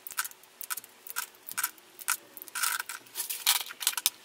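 Lipstick tubes and their plastic caps being handled: an irregular run of short, sharp clicks and taps with a few brief scrapes, as caps are pushed onto tubes and tubes are set down.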